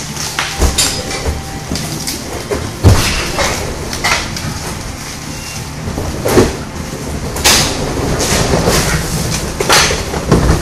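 Cardboard boxes rattling along a metal skate-wheel roller conveyor, with irregular knocks and thumps as cartons are pushed, set down and opened.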